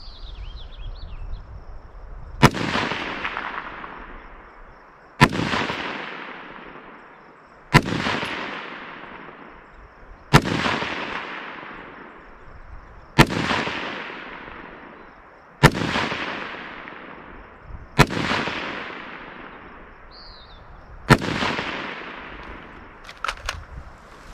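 Rifle fired eight times from the prone, roughly one shot every two and a half seconds, each shot ringing out and trailing off over about two seconds.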